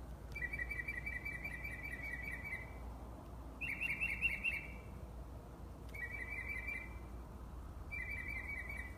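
A bird singing at night, in four phrases, each a fast run of quickly repeated notes, the longest about two and a half seconds and the others about a second, with short pauses between.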